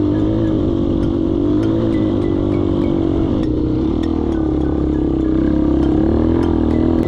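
Dirt bike engine running under throttle on a rough dirt trail, its pitch sagging about three and a half seconds in and picking up again.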